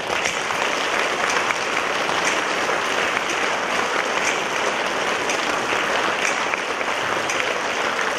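Audience applauding steadily in a hall, a dense, even clapping that swells in at the start and holds.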